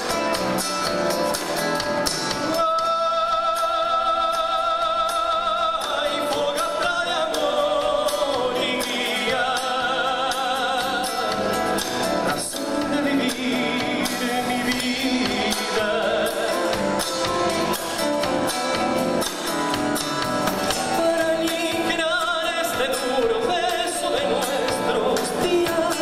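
Live band music: acoustic guitars, electric bass and drum kit playing together, with a voice singing long, wavering held notes over it.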